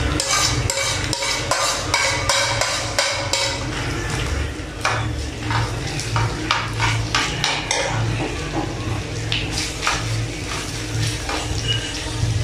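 A spoon scraping raw ground chicken off a ceramic plate into a hot pan, then stirring and pressing it around the pan, with repeated clinks and scrapes against the plate and pan over a light frying sizzle and a steady low hum.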